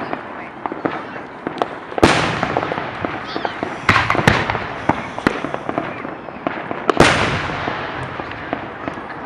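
Aerial fireworks exploding: three big bangs, about two, four and seven seconds in, each trailing off in a fading rumble, with many smaller crackling pops between them.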